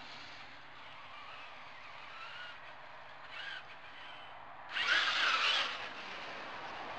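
Traxxas E-Maxx monster truck's Hobbywing 150A brushless motor whining in short throttle bursts. There is a brief one about three seconds in and a louder, longer one near five seconds as the truck comes close, the pitch bending up and down.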